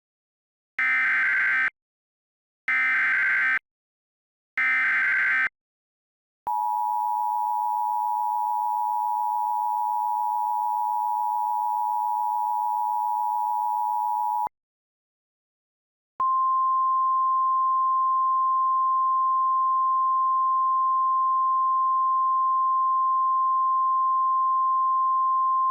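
Emergency Alert System tones. First come three short bursts of SAME header data, then the two-tone EAS attention signal held for about eight seconds. After a short gap a single steady warning tone starts and is still sounding at the end.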